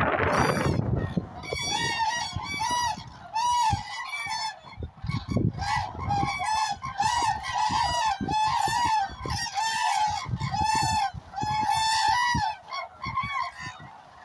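Flock of common cranes calling, many short arched trumpeting calls overlapping one another in a steady chorus, with wind rumble on the microphone in the first second.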